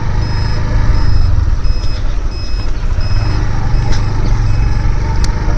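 Motorcycle ride picked up by a helmet microphone: a steady low rumble of engine and wind. Over it, a short high-pitched beep repeats evenly, about every three-quarters of a second.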